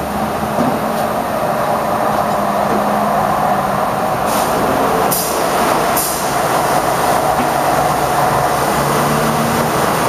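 High-pressure washer jet spraying water on a truck's chassis and wheels, a steady hiss with a few brief sharper spurts in the middle.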